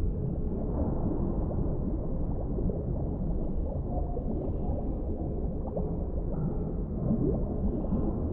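Underwater ambience: a deep, steady rumble of water with many small bubbling, gurgling sounds over it.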